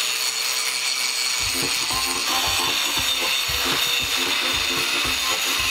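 Handheld angle grinder grinding rusted steel weld seams on a riveted barge hull, the disc giving a steady high hiss against the steel. The seams are being ground clean of corrosion before they are rewelded. Background music with a beat comes in about a second and a half in.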